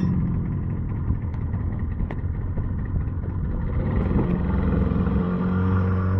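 Yamaha 30 outboard motor running as the boat moves across the water. Its sound is rough and rattly at first, then settles into a steady pitched tone about four seconds in.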